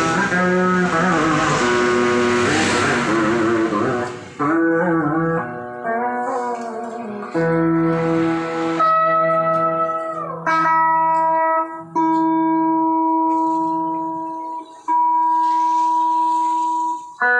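Guitar music: plucked notes held long, wavering with vibrato and bent or slid in pitch, one gliding down about ten seconds in.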